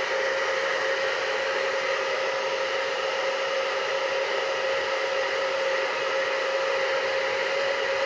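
UNIKARA ionic hair dryer, fitted with a diffuser attachment, running steadily: a constant rush of air with a steady motor whine over it.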